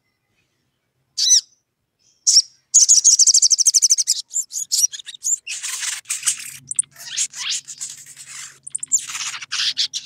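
Caged sunbird calling: two sharp chirps, then about a second and a half of rapid, dense trilling chatter, followed by a run of scratchy chirps and calls, the excited challenge calling used to draw out a rival. A faint low hum comes in about six seconds in.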